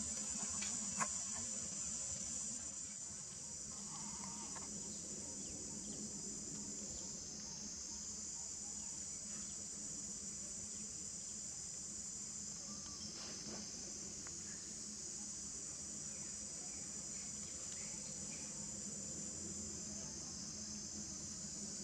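Steady, high-pitched insect chorus buzzing without a break, with a sharp click about a second in.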